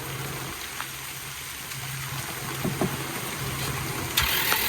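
Starter cranking a flooded Honda F22 engine with its spark plugs removed, to force water out through the plug holes. It makes a low steady whir that comes and goes, under the hiss of heavy rain. A louder rushing hiss sets in suddenly near the end.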